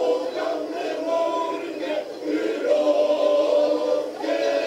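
Men's choir singing in chorus, held chords in phrases broken by short breaths about two seconds in and again near the end.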